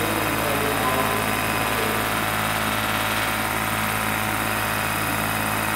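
Electric-powered large-scale RC Boeing CH-47 Chinook model hovering, its twin tandem rotors and motors running with an even, steady hum.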